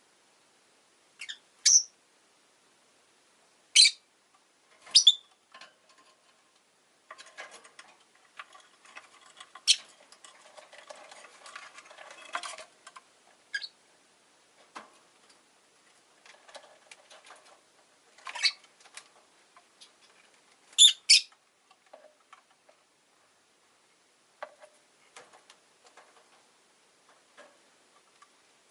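Rosy-faced lovebird giving short, sharp, high-pitched chirps one at a time every second or few, with a quick double chirp a little past the middle as the loudest. From about 7 to 12 seconds in, soft rapid clicking and rustling runs under the calls.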